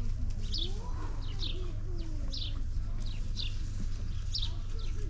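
Small bird chirping over and over, each chirp short, high and falling in pitch, about two a second, over a steady low rumble.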